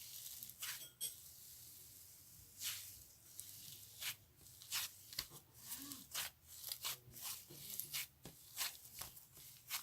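Cloud slime being handled, stretched and pulled apart, giving faint, irregular soft tearing and crackling sounds, about one or two a second.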